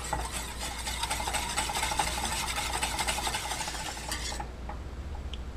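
Wire whisk beating a cocoa and cream mixture in a stainless steel saucepan: rapid scraping and rattling strokes against the pan that stop about four and a half seconds in. The whisking breaks up clumps of cocoa powder and gelatin.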